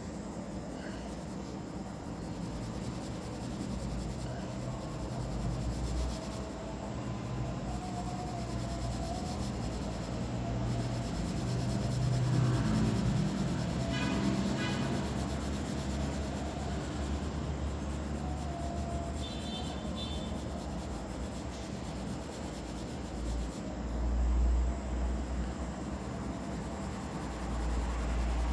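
Drawing on paper: a pen scratching and rubbing across the page, over a low background rumble.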